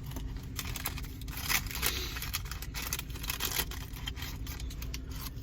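Paper fast-food packaging crinkling and rustling in a rapid run of crackles, over a steady low rumble.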